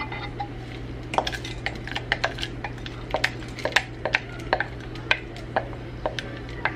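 A wooden spoon knocking and scraping against a glass measuring cup as frozen corn is scraped out into a pot of broth: a run of irregular sharp clinks and taps.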